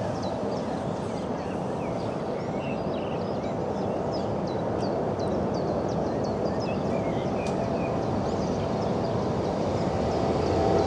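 Tram approaching, its steady rumble growing slowly louder, with a steady whine joining near the end. Birds chirp repeatedly over it.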